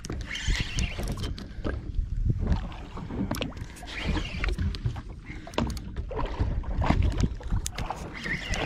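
Sea and wind noise aboard a small fishing boat: a steady low rumble of wind buffeting the microphone, with water rushing and splashing against the hull in three hissy surges and scattered knocks and clicks on the boat.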